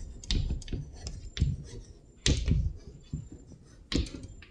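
Irregular sharp taps and knocks of writing, about a dozen in the span, loudest a little over two seconds in and again near the end.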